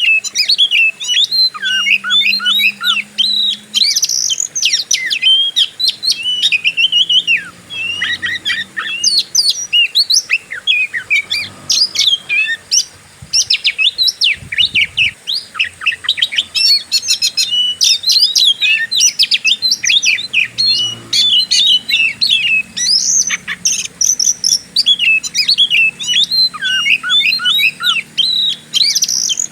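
Oriental magpie-robin (kacer) singing a long, unbroken stream of fast, varied chirps, trills and whistles in the aggressive 'fighting' style.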